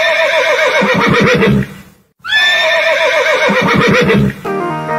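A horse whinnying twice, the same call repeated. Each call opens on a high note, then breaks into a quavering, falling whinny that lasts under two seconds. Music starts just before the end.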